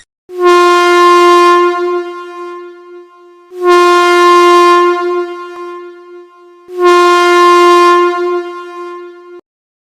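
Air horn sounding three long blasts of about three seconds each, at one steady pitch.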